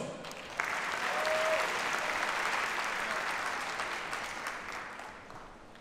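Arena audience applauding. The applause starts sharply about half a second in, holds, then gradually fades away.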